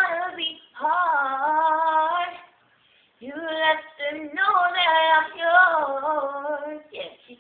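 A female voice singing unaccompanied, holding long, wavering notes in two phrases with a brief pause about two and a half seconds in.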